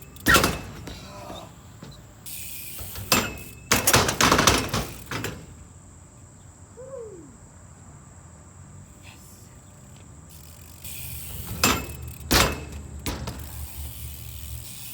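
BMX bike riding on concrete: tyres rolling with a steady hiss, and several sharp knocks and clanks from the bike landing and hitting the ground, clustered near the start, a few seconds in, and again about twelve seconds in.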